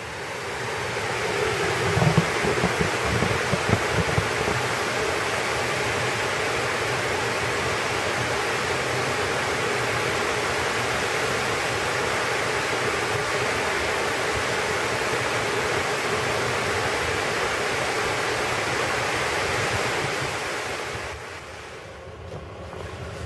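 Steady rush of water pouring over a small concrete dam spillway, fading in over the first couple of seconds and fading out near the end. A few low wind thumps on the microphone in the first few seconds.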